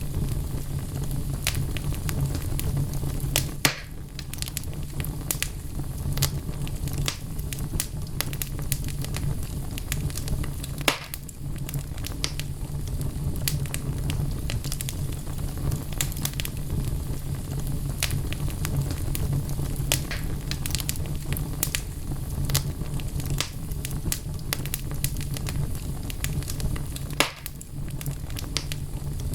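Wood fire burning in a fireplace: logs crackling steadily with many small snaps and a few louder pops.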